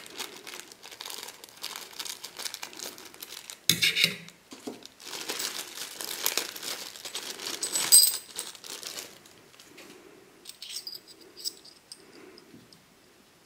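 Small clear plastic parts bag crinkling as it is cut open with scissors and handled, with louder crackles about four and eight seconds in. Near the end come a few light metallic clinks as the small metal and rubber feet from the bag are handled.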